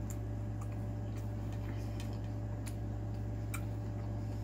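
Steady low electrical hum with faint, irregular small clicks, about two a second.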